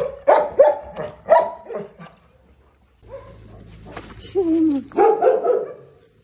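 Shelter dogs barking: a quick run of about six barks in the first two seconds. After a short lull, a falling whine and more barking come near the end.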